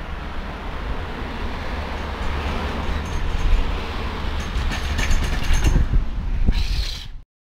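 Wind buffeting a phone microphone, with the clatter and rattle of a mountain bike bumping down a flight of concrete steps from about three seconds in. The sound cuts off abruptly just before the end.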